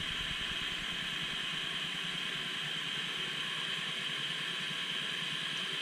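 Butane gas soldering iron hissing steadily while it heats solder joints.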